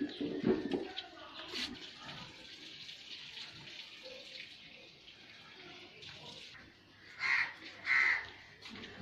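Sandals and flip-flops scuffing on a paved alley as two people walk, over a steady outdoor hiss. Near the end come two short, loud cries about a second apart.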